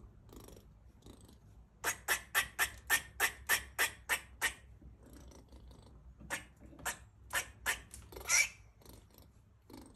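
Female gray squirrel in heat barking: a quick run of about ten short, sharp barks at roughly four a second, then a few more spaced barks and a longer, harsher call near the end.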